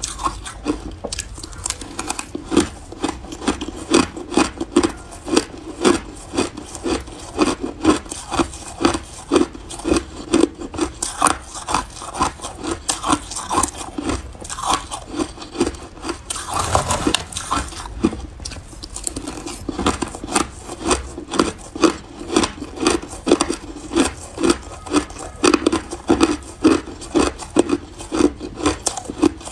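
Shaved and crushed ice being chewed close to the microphone: a steady run of crisp crunches, about two or three a second, with one louder, longer rasp about halfway through.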